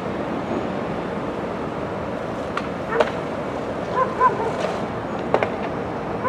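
Steady outdoor background noise with no train passing, broken by a few sharp clicks and two short high chirps about four seconds in.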